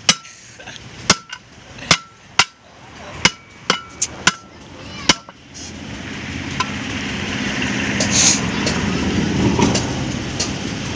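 A steel bar strikes the steel truck wheel rim about eight times in the first five seconds, each a sharp ringing metal clank. After that, compressed air rushes steadily into the tyre through the hose, growing louder as it inflates.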